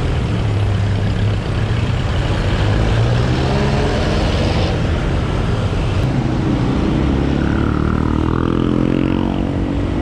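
Road traffic: motor vehicle engines running close by, with one engine speeding up, its pitch rising steadily for several seconds from about four seconds in.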